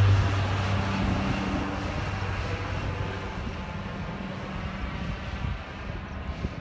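De Havilland Canada Twin Otter's twin turboprop engines and propellers droning as the aircraft climbs away overhead, the hum dying away steadily as it recedes.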